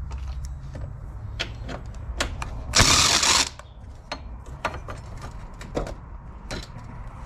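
Hand ratchet with an extension and 10 mm socket clicking as it turns out a strut-mount bracket bolt, with scattered single clicks and one fast, loud run of clicks about three seconds in.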